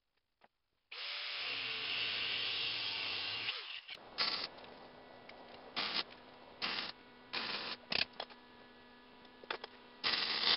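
Metalworking in a shop: about a second in, a steady harsh run of about two and a half seconds, then a string of short crackling bursts of arc welding laying tack welds on steel, over a faint steady hum.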